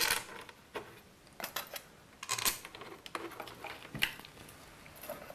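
Scattered light metallic clicks and taps as small screws are dropped into the base of an iMac G4 and driven with a screwdriver.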